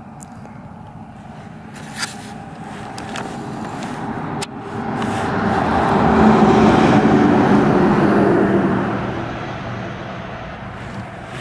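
A motor vehicle passing: its steady engine and road noise swells over a few seconds, peaks, then fades away, with a couple of sharp clicks before it.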